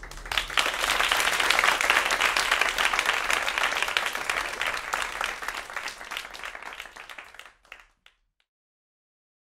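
Audience applauding: a dense burst of clapping that starts at once, then thins out and dies away about eight seconds in.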